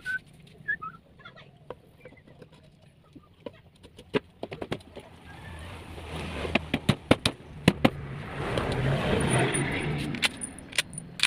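Scattered metallic clinks and taps, as from tools and engine parts being handled, with faint chicken clucks near the start. From about six to ten seconds in, a louder rush of noise with a low hum swells and fades.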